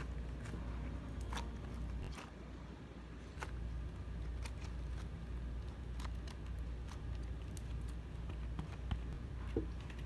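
Hands handling small squishy toys close to the microphone: scattered small clicks and crackles at irregular intervals over a steady low hum.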